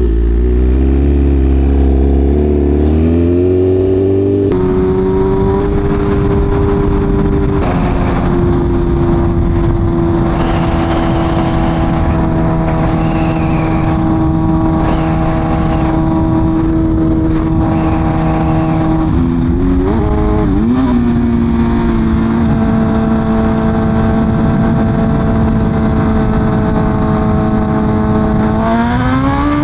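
BMW M1000RR inline-four engine under way: the revs climb, drop with an upshift about four and a half seconds in and again at about seven and a half seconds, then hold steady for a long stretch at a rolling cruise. The revs dip and blip briefly around twenty seconds in, then rise steeply near the end as the throttle opens for a roll-race pull.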